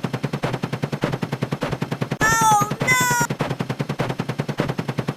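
A rapid, even stream of short repeated sound-effect clicks, about ten a second. Just over two seconds in, a voiced 'oh-no' sound effect of two syllables, each falling in pitch, plays over them.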